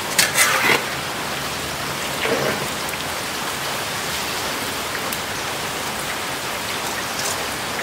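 Potato fries deep-frying in a large wok of hot oil, a steady sizzle. A metal skimmer scrapes and knocks against the pan a few times in the first second.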